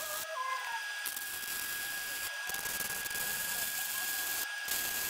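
Wire-feed welding arc crackling and sizzling as a bead is laid along steel angle iron, broken by a few brief pauses.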